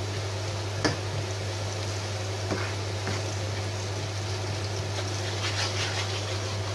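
Chopped onion, garlic and parsley frying in a non-stick pan and stirred with a wooden spoon: a steady soft sizzle over a low constant hum. There is a sharp knock of the spoon on the pan about a second in, and a few lighter taps and scrapes later on.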